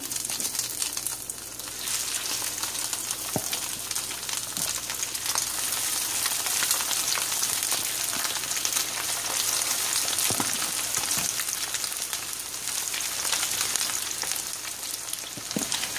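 Chicken pieces coated in cornstarch and egg frying in hot oil in a pan, a steady dense sizzle and crackle of fine spattering.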